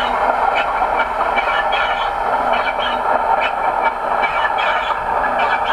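OO gauge model Class 50 diesel locomotive running slowly along the track: a steady whirr of running noise with frequent irregular clicks of the wheels over rail joints.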